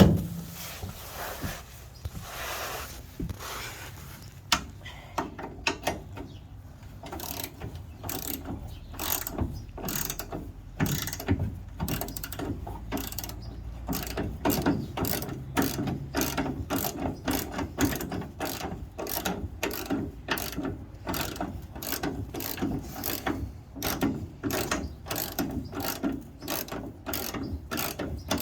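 Hand ratchet with a socket turning a nut, its pawl clicking in quick, even runs: rear bumper mounting nuts being backed off.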